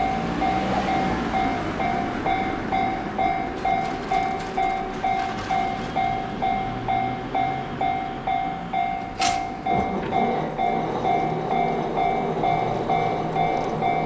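Japanese railway level-crossing warning bell ringing in an even rhythm of about two strikes a second, while a train runs through the crossing. A brief sharp sound cuts in about nine seconds in.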